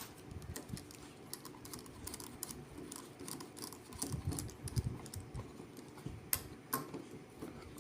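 Light, scattered clicks and taps of small screws and the plastic molded case of a circuit breaker being handled, with two sharper clicks a little past six seconds in.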